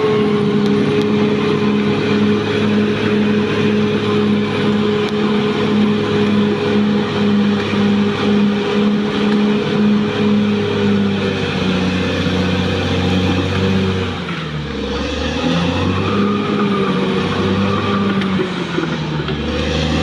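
Caterpillar D6R XL crawler bulldozer's diesel engine running steadily. Its note dips about fourteen seconds in and picks up again near the end.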